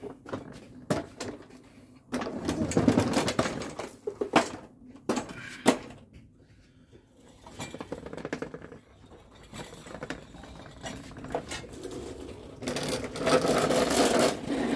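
Handling noise as a petrol lawnmower is lifted down from a steel lift table onto the ground: irregular knocks and metallic clatter, in one noisy spell about two seconds in and another near the end.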